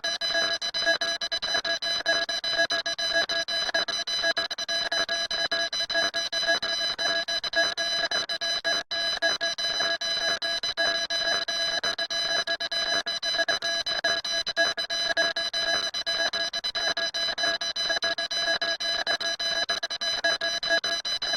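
Harsh electronic alarm-like tone: several steady pitches sounding together with a rapid flutter, broken by a split-second gap about nine seconds in.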